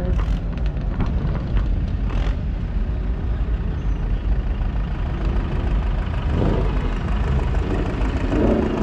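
Loud, steady low rumble of a car engine and exhaust close by, with a few short sharp pops early on.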